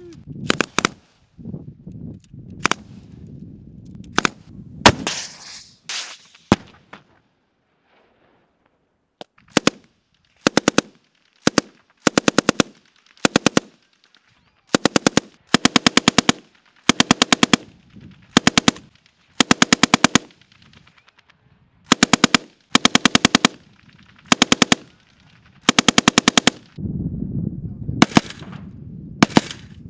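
Live-fire gunfire. First scattered single rifle shots, then after a short pause a long string of short bursts of a few rounds each from a belt-fed machine gun. Near the end a low rumble sits under a few heavier reports.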